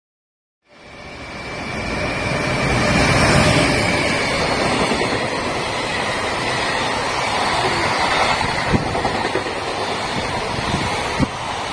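Container freight train passing at speed, a steady rumble and clatter of wagon wheels on the rails. It starts about a second in and builds over the first few seconds, with two sharp clicks later on.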